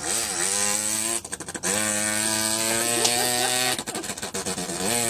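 A man imitating a small Zanella 50 moped engine with his voice: a buzzing, engine-like note that dips and climbs as if revving, then holds steady, broken twice by a rattling, sputtering trill.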